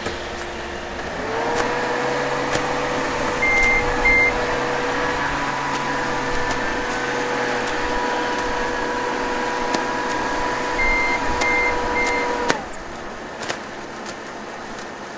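Heavy farm machinery running with a steady whine. About a second in, the whine rises in pitch and loudness and holds, then drops away abruptly near the end. Short high electronic beeps sound twice in the first part and three times later on.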